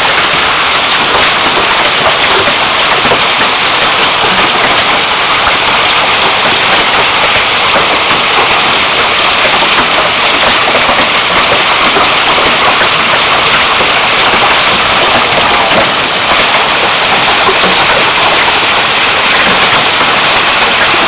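Hailstones pelting down in a large hail storm: a loud, dense, unbroken clatter of countless small impacts.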